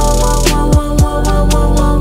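Background music with a steady beat: held instrumental notes and deep kick-drum hits.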